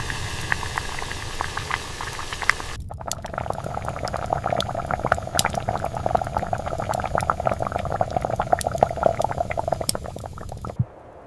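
A cooking pot bubbling at a simmer, with many small pops and spits. About three seconds in, the sound cuts from a lower, humming background with sparse ticks to the fuller bubbling.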